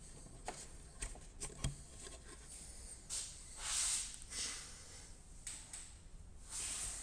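Weights being handled and loaded onto the pedal: a few light clicks and knocks, one with a dull thud, then several short scraping, rustling noises, the loudest about four seconds in.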